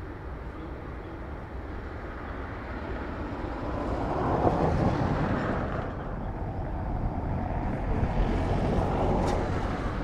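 Boeing 737 airliner jet engines running at taxi power, a steady rumble and whine that swells about four seconds in and again near the end as the aircraft pass.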